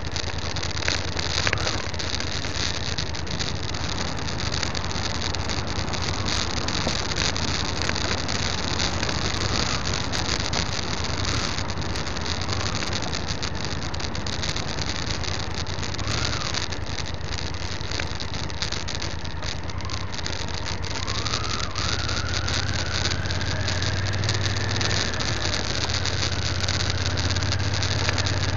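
Motorcycle riding on a gravel track: the engine runs steadily under tyre and wind noise. About twenty seconds in, a whine rises in pitch and then holds as it picks up speed.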